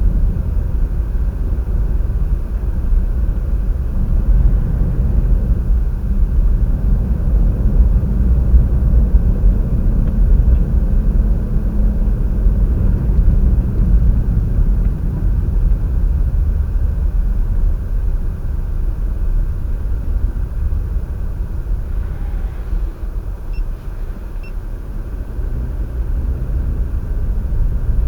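High wind buffeting the microphone across an open field: a loud, low rumble that swells and eases in gusts.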